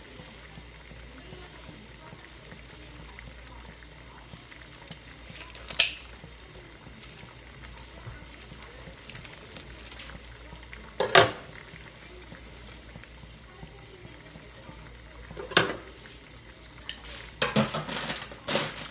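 Pot of water at a steady boil, with three sharp snaps a few seconds apart and a quick run of clicks near the end as kitchen scissors cut through a bundle of brittle dried Korean glass noodles.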